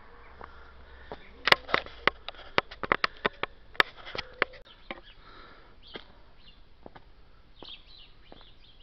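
A quick, irregular run of sharp clicks and taps, starting about a second and a half in and lasting about three seconds, then a few faint bird chirps near the end.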